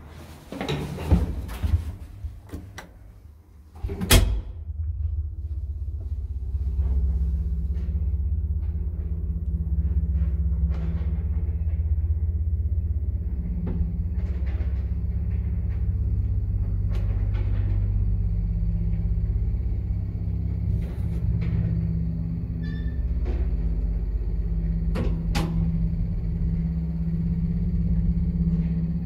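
Car of a 1979 ZREMB two-speed traction elevator setting off and travelling. A door bangs shut about a second in and a heavy clunk follows about four seconds in. Then a steady low rumble runs through the car, growing stronger a few seconds later, with scattered light clicks and knocks.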